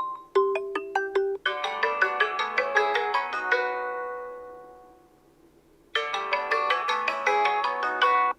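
Xiaomi Mi 10T ringtones playing: quick, bright chime-like melodic notes. One tune fades away to near silence about five seconds in, and a new ringtone starts abruptly about a second later.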